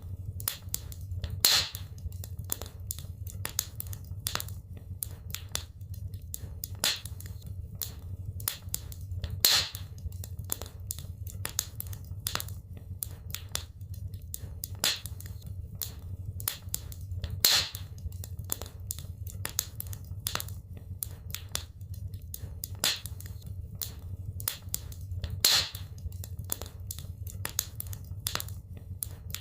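Wood fire burning in a fireplace: constant crackling and snapping over a steady low rumble, with a sharper, louder pop about every eight seconds.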